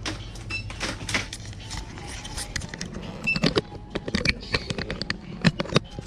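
Groceries being handled at a shop checkout: plastic bottles and items knocked and set down on the counter in an irregular clatter, loudest in a few sharp knocks about halfway through and near the end, with two short beeps like a till or barcode scanner.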